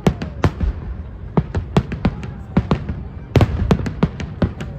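Fireworks going off all around: many sharp bangs at an irregular pace, several a second and overlapping, over a steady rumble of more distant explosions. The heaviest cluster comes a little past the middle.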